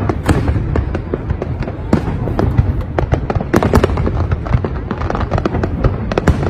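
Fireworks display: aerial shells bursting in a rapid, near-continuous string of bangs and crackles over a steady deep rumble.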